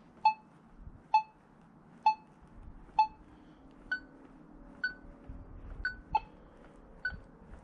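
Tarsacci MDT 8000 metal detector giving short target beeps about once a second as its search coil is swept over a large piece of iron lying next to a 9-carat gold ring. The first four beeps are lower in pitch; from about four seconds in, most are higher, with one lower beep among them.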